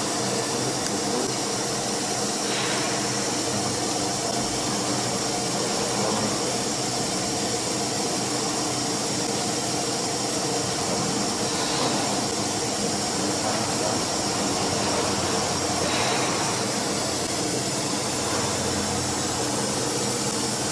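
Steady whooshing machine noise with a steady hum from a CNC router's machinery running during its automatic tool-length measurement at the tool setter, with a few faint soft knocks.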